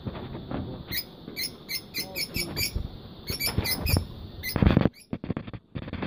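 Lutino peach-faced lovebirds chirping: short, high-pitched squeaky calls repeated in quick clusters. A brief loud rustle comes a little past halfway.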